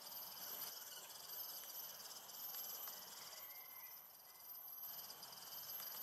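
Faint, steady chorus of insects trilling, high-pitched with a fast, even pulsing.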